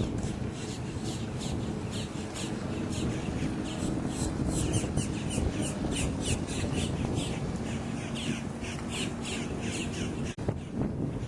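Birds calling in a rapid, regular series of short, harsh calls, several a second, over a steady low rumble. The sound drops out briefly near the end.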